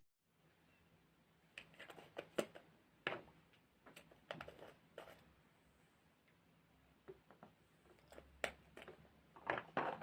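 Faint, scattered sticky clicks and crackles of slime being handled, a few single pops spread out and a quick cluster of them near the end.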